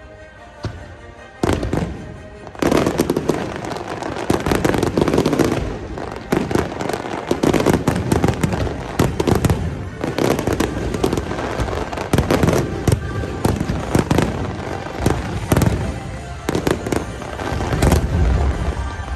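Aerial fireworks shells bursting in quick succession: a single bang about a second and a half in, then a dense, continuous barrage of bangs and crackling from about three seconds on.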